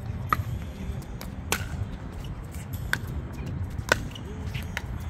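Pickleball rally: paddles striking the ball four times, about a second apart, each a sharp pop with a short ring, over a steady low rumble.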